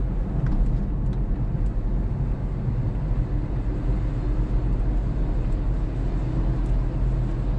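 Steady low drone of a running Toyota Prius heard from inside the cabin, with a few faint ticks.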